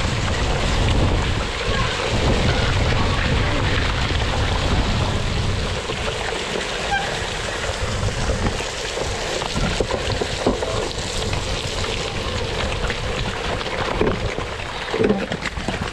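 Wind rushing over a GoPro's microphone as a cyclocross bike is raced over rough ground, with frequent clicks and knocks from the bike. The wind rumble is heavier for the first six seconds or so, then eases.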